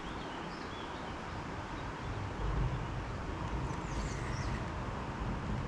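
Outdoor riverside ambience: a steady hiss with a few short, high bird chirps, and a low rumble that grows from about two seconds in.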